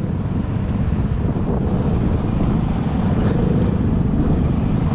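Vespa S125 scooter's single-cylinder engine running as it rolls slowly at low speed, a steady low rumble that grows slightly louder.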